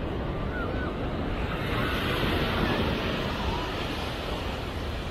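Ocean surf rushing on the beach with wind on the microphone, swelling louder for a moment about two seconds in.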